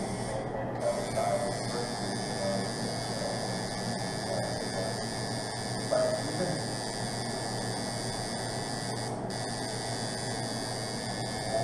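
Tattoo machine buzzing steadily as its needle works into the skin.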